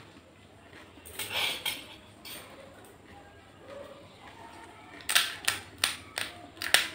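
Crisp fuchka (pani puri) shells crackling as fingers break them open: a brief rustling crunch about a second in, then a quick run of about six sharp, crisp cracks near the end.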